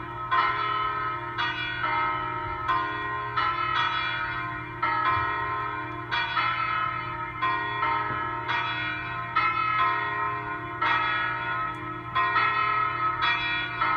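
Church bells pealing in celebration: several bells of different pitch struck one after another, a new strike about every second, each ringing on over the others.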